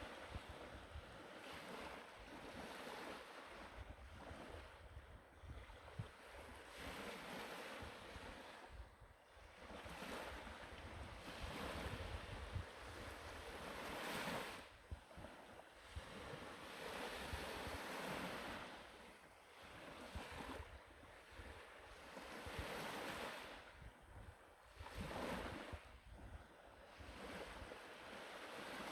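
Black Sea surf: waves breaking and washing up the shore, swelling and falling back every few seconds, with wind rumbling on the microphone.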